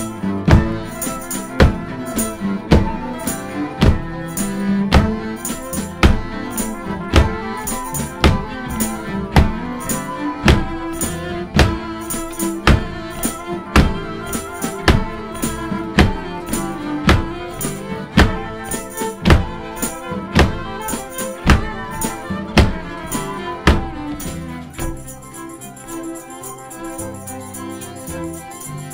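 Instrumental passage by an acoustic folk band: nylon-string guitar, fiddles and double bass over a steady percussion beat. The beat drops out near the end, leaving the strings sustaining.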